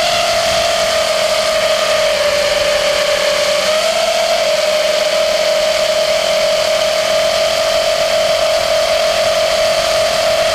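Brushless motors of a Diatone GT200S FPV quadcopter spinning with a steady high whine, stepping up briefly in pitch about four seconds in. The motors make an abnormal noise with excessive vibration and overheat, which the owner traces to a crash into a backpack while they stayed armed too long.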